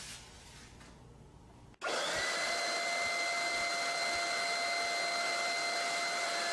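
Homemade vacuum's 110-volt motor starting abruptly about two seconds in and running steadily, a rush of air with a high whine: a test run showing the newly wired motor and on-off switch work.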